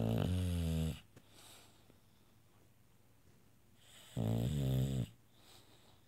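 A sleeping English bulldog snoring: two loud snores, each about a second long, one at the start and one about four seconds in, each followed by a faint hiss.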